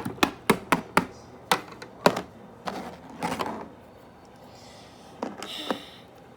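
Small hard plastic Littlest Pet Shop toy figures tapping on a hard surface as they are moved: about eight quick, sharp taps in the first two seconds, then a few softer scuffing sounds.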